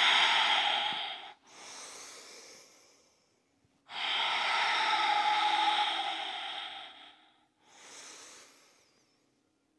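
A woman breathing audibly and slowly close to a clip-on microphone in time with arm raises. Two long, louder breaths out of about three seconds each, each followed by a shorter, fainter breath in.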